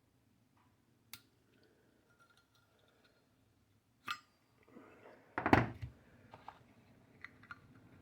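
Metal clinks and clicks from a copper Zippo lighter being handled: a few sharp clinks, and one louder knock about five and a half seconds in.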